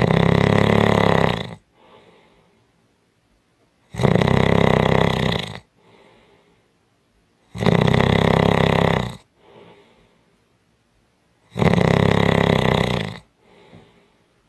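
A person snoring strongly: four loud snores, each about a second and a half long, coming roughly every four seconds, with a faint, softer breath between them.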